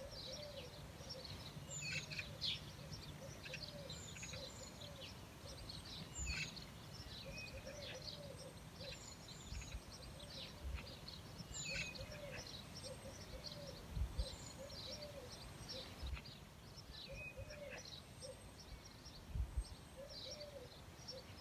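Outdoor birdsong: many quick, high chirps and twitters throughout, with a lower arched call repeating in short groups underneath and a few soft low thumps.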